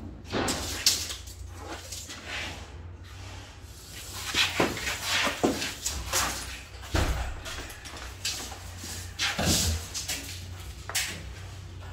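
Irregular scrapes and knocks of building work, such as cement sheets and tools being handled, over a steady low hum.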